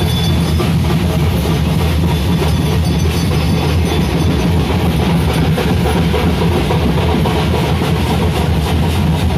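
Daiva (bhuta kola) ritual music: loud, dense drumming with other instruments, playing continuously and without a break.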